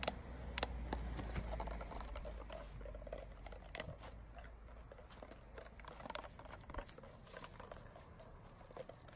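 Irregular clicking, crinkling and rustling as a puppy runs through grass carrying a plastic water bottle with a small rock inside. There is a low rumble during the first two seconds.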